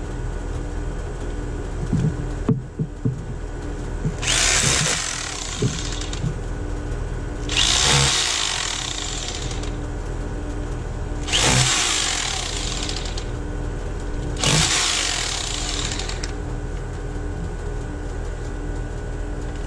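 Rotary hammer drill in hammer-only mode with a chisel bit, chipping at a cinder-block wall to widen a hole through it. The chiselling comes in four bursts of a couple of seconds each, over a steady low hum.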